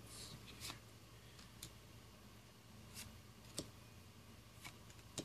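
Near silence with a low hum, broken by a handful of faint, brief ticks of paper trading cards being slid one by one off a stack held in the hands.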